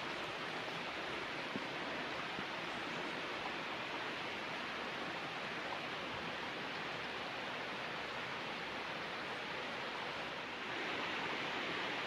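Steady rushing of flowing water, an even hiss with no changes.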